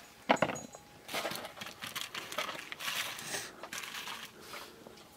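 Potatoes being picked from a heap and dropped into a plastic bowl. A sharp knock comes just after the start, followed by irregular rustling and small knocks as hands rummage through the pile and its sacking.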